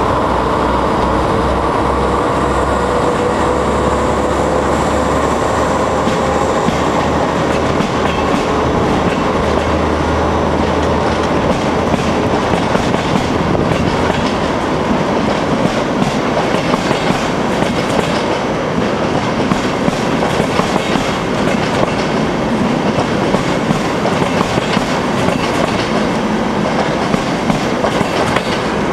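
An ADtranz diesel locomotive passes close beneath, hauling an intercity train. Its engine runs with a low hum and a falling whine that die away within about the first eleven seconds. The passenger coaches then roll past with steady wheel noise and rhythmic clickety-clack over the rail joints.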